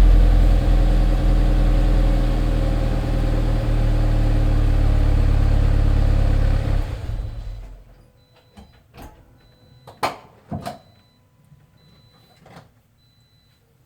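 Toyota GT86's FA20 flat-four idling steadily through an HKS Legamax Premium cat-back exhaust, then shut off about seven seconds in, the sound dying away over a second. A few faint clicks and knocks follow.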